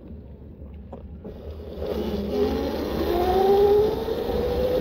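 Electric bike motor whining, rising steadily in pitch as the 1500 W e-bike speeds up, over a rush of wind and tyre noise that builds from about a second in.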